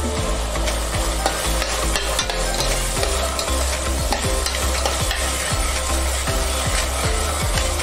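A metal spoon stirring chopped tomatoes, small onions and coriander in an aluminium pressure cooker pan. Repeated clinks and scrapes of the spoon against the pot run over the sizzle of the cooking mixture.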